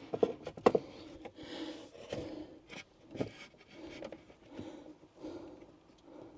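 A person breathing heavily through the nose in soft, repeated breaths while working, with a few small clicks and knocks as battery cables and a tool are handled at the terminals.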